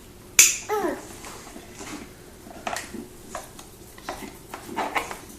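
Booster seat strap buckle clicking once, sharply, as the button is pushed, followed by a toddler's short sliding vocal sound and a few lighter knocks.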